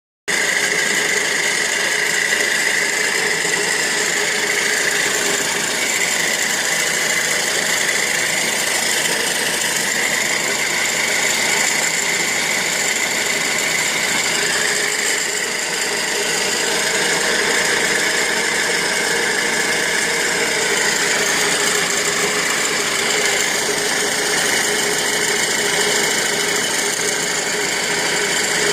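Steady rasping, whirring mechanical noise from a Ford Mondeo Mk3, with a high whine that wavers in pitch now and then; the owner takes it for a fault sound.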